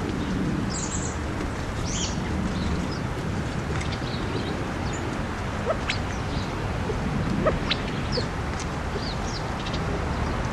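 A flock of California quail foraging, giving scattered short, high contact notes every second or so over a steady low background rumble.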